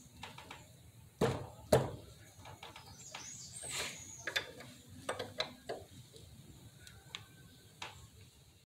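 Metal spanner clicking and knocking against a motorcycle brake caliper's bleed screw while the screw is worked loose. There are two sharp clacks a little over a second in, then a run of lighter scattered clicks with a brief scrape.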